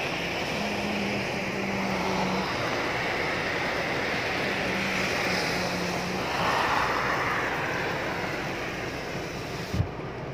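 Heavy rain falling in a dense, steady hiss that swells for a moment about two-thirds of the way in. A short thump comes near the end.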